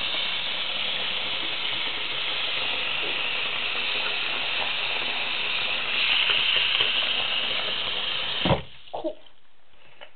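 Bathroom faucet running water into a sink basin, a steady splashing rush. About eight and a half seconds in it cuts off suddenly with a short knock as the tap is shut.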